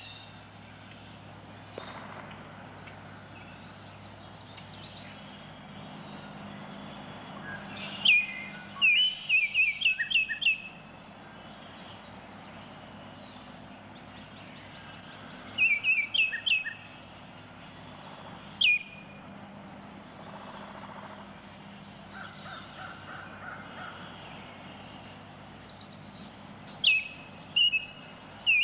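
Baltimore oriole calling: a few bursts of quick, sharp, downslurred whistled notes with long gaps between them, the longest burst about two seconds, over a steady background hiss.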